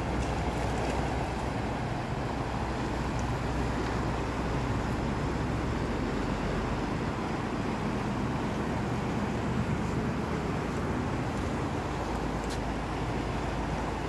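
Fast river rushing over rapids: a steady roar of flowing water.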